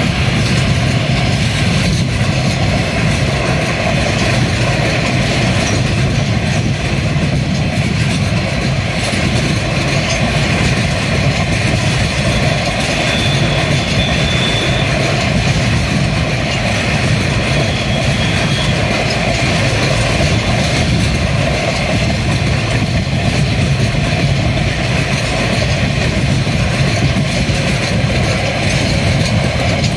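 Empty log wagons and container flat wagons of a freight train rolling past close by, a steady, unbroken rumble of steel wheels running on the rails. A faint high tone shows briefly near the middle.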